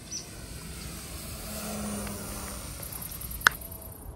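Electric motor and propeller of a home-built fixed-wing FPV plane running as it flies a low pass, with a sharp click about three and a half seconds in.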